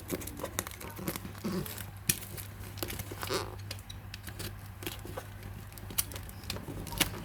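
A parcel's packaging being handled and opened: irregular crinkling and rustling with scattered sharp clicks, over a steady low hum.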